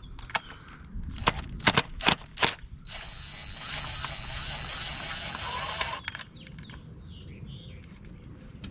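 Sharp clicks of a 10 mm socket and ratchet working loose the bolt that holds a Nissan 350Z's ignition coil pack, about four clicks in the first few seconds. Then comes a steady noise lasting about three seconds.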